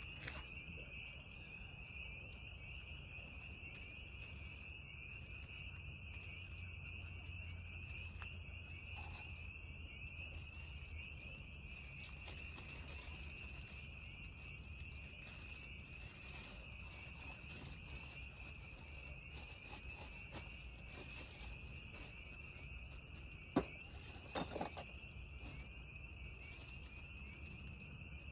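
Night crickets chirring steadily in one high, continuous trill over a low hum. About five seconds before the end comes a single sharp knock, then two lighter ones.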